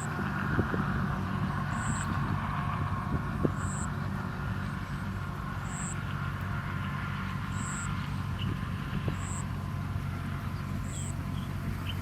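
A steady low engine-like rumble carries through, with a short high-pitched note repeating about every two seconds over it.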